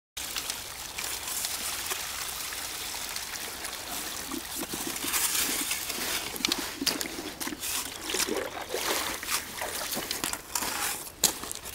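Water trickling and splashing, with scattered small clicks and knocks and one loud knock near the end.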